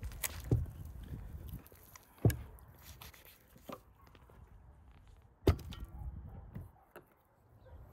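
Sharp knocks of butchering beef legs with a knife on a wooden cutting board, a few strikes a second or more apart. The two loudest come about two and five and a half seconds in, and the second is followed by a brief ring.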